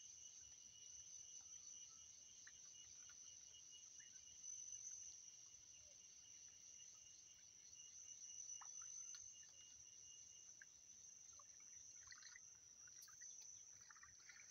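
Faint, steady chorus of insects, a continuous high trill, with a few soft rustles of handled vegetation near the end.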